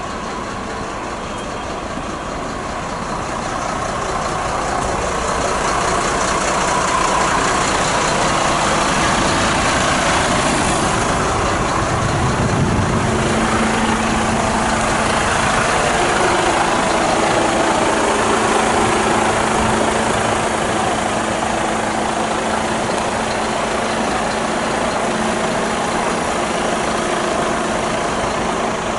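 A truck's diesel engine idling, a steady running sound that grows louder over the first several seconds. A low steady hum joins it about halfway through.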